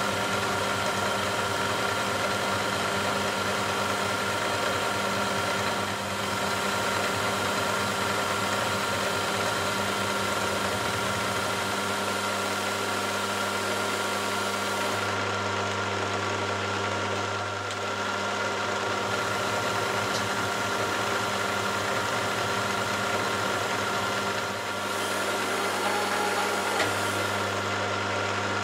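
Milling machine cutting a metal bar with a 12 mm carbide end mill: a steady running sound from the motor and spindle, with a constant tone and the noise of the cut, shifting slightly in pitch a few times. The spindle is below 1000 rpm, a speed the machinist thinks too slow for a good finish.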